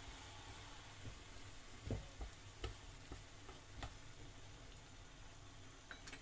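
Corned beef, potatoes and carrots simmering faintly in water in a frying pan, while chopsticks stir the mix and knock lightly against the pan a few times, the loudest knock about two seconds in.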